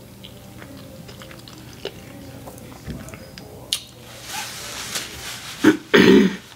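Soft clicks and mouth noises close to the microphone, then two loud, short rustling bumps near the end.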